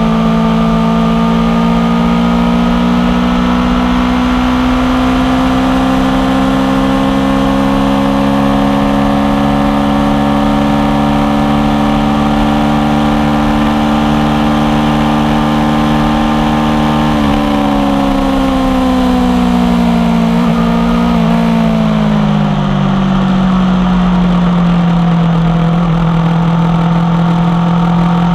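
2016 Aprilia Tuono V4 1100 Factory's V4 engine through an unbaffled aftermarket exhaust, pulling with its pitch climbing slowly, then rolling off about two-thirds of the way in so the pitch falls, before settling to a steady lower note.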